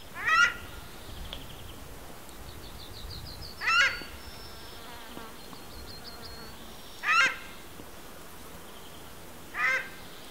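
A bird calling with short nasal honking notes, four times a few seconds apart. Two faint, fast, high trills come in between.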